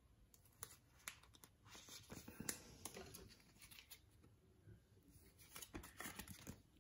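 Faint scattered clicks and scratches of a trading card being handled and slid into a clear plastic card sleeve.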